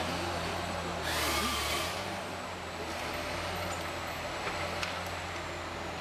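A heavy machine's engine running steadily, with a brief loud hiss and squeal about a second in.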